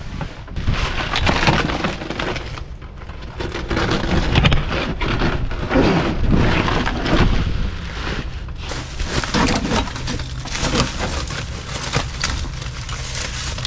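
Stiff, decades-old cloth floor mats being ripped and pulled off a truck's cab floor, crackling and rustling in irregular bursts.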